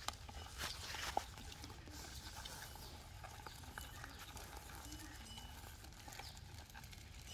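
Faint handling rustle with a few sharp clicks in the first second or so, then a quiet outdoor background with a few faint high chirps.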